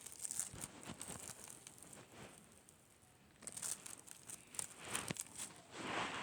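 Slime being worked by hand: irregular crinkly crackling and sharp clicks, louder in a few stretches and loudest near the end.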